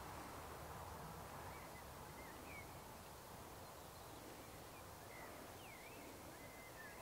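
Faint birdsong over a quiet outdoor background: short chirps and whistles, a few at first and more near the end.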